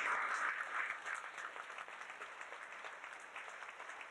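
Audience applauding, loudest in the first second, then steadier and a little quieter.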